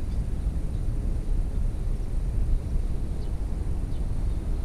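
Wind buffeting the camera microphone: a steady, uneven low rumble.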